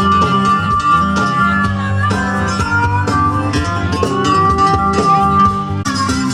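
Band music: a lead instrument holds long, slowly bending notes over a steady bass and rhythm.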